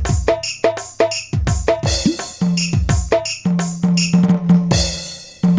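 Sampled electronic drum-pad sounds (Roland SPD-20 tones on a mobile octapad app) played in a fast, steady rhythm. Kick-drum booms fall in pitch, with snare and wood-block hits. A low held bass tone comes in partway through, and cymbal crashes ring near the end.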